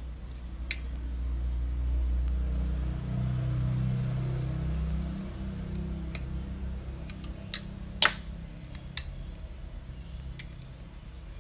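Hands working on a wall outlet and its wiring: a low rumble of handling noise for the first few seconds, then several short sharp clicks, the loudest about eight seconds in.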